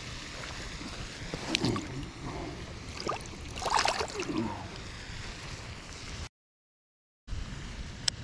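Water splashing and sloshing at the bank's edge as a small largemouth bass is let go by hand, loudest about four seconds in, over steady wind on the microphone. The sound drops out completely for about a second near the end.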